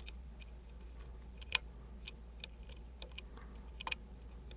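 Faint, scattered small metallic clicks and ticks of a lock pick and tension wrench working the pins inside an Emhart Black Belt lock cylinder, with a sharper click about one and a half seconds in and a few quick ones near the end.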